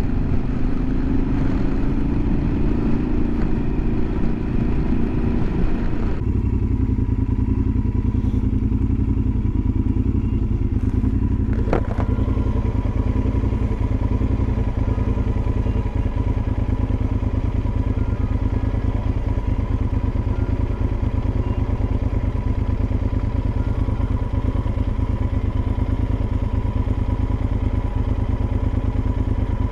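Motorcycle engine and road noise while riding for the first six seconds or so, then a sudden change to the same motorcycle's engine idling steadily while it stands in traffic. There is a single sharp click about twelve seconds in.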